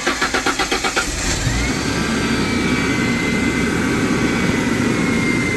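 1995 Ford Thunderbird engine cranking on the starter in rapid even pulses, catching a little over a second in, then running steadily with a thin high whine over it.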